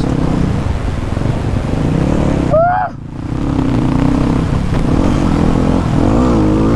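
Motorcycle engine running under way, its pitch rising and falling with the throttle, with a short rising rev about two and a half seconds in and a brief drop in level just after.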